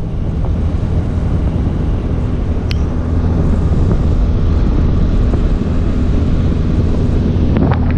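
Outboard motor of a small open skiff running steadily at speed, a low even hum under the rush of wind and water. A brief sharp click about three seconds in.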